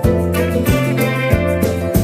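Background music: an upbeat track led by guitar, with a steady beat.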